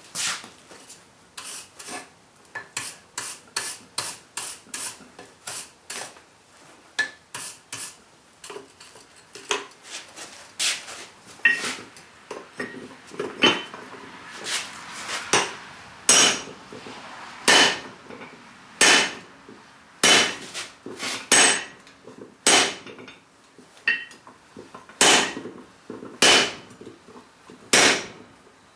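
Hand hammer striking hot steel held in tongs on an anvil, forging a ball-peen hammer head into a hide-scraper blade. Quick, lighter blows come about three a second at first, then slower, heavier single strikes about a second and a half apart.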